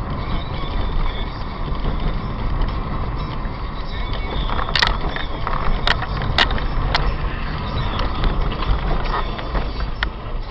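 Steady low rumble of a moving car's road and engine noise, as picked up by a dashcam, with a handful of sharp knocks in the middle and one more near the end.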